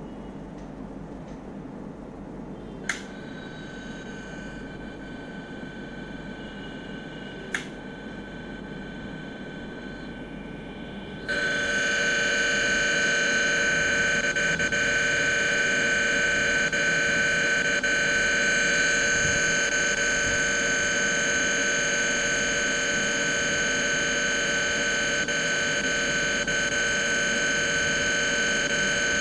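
Simulated electric-motor whine of an augmented-reality motorized gyroscope model, played through a phone's speaker: a steady hum of several fixed pitches. It jumps much louder about eleven seconds in and then holds steady. Two short clicks sound in the quieter first part.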